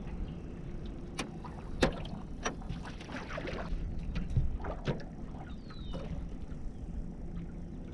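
Knocks and clatter of a landing net and fishing gear against a small fishing boat, over a steady low wind rumble on the microphone. There are several sharp knocks in the first five seconds, the loudest about two seconds in, and a brief rushing noise about three seconds in.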